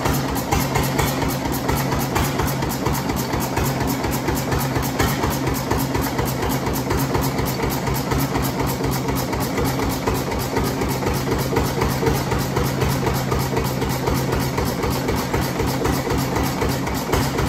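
1919 Cummins 6 hp Hvid single-cylinder horizontal stationary oil engine running steadily on kerosene with a fast, even mechanical beat.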